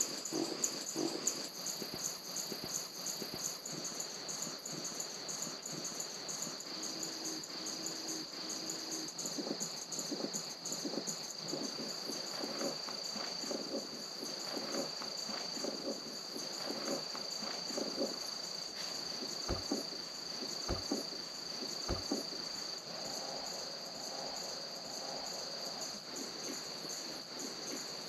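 Crickets chirring steadily. Scattered faint low sounds lie underneath, with three short low thuds about twenty seconds in.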